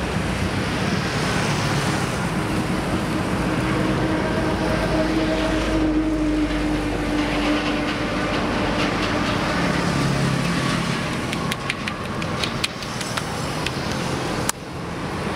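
Steady highway traffic, with one passing vehicle's engine hum standing out for a few seconds in the middle. Near the end come a quick run of sharp slaps: the masseur's hands chopping on a bare back and shoulders.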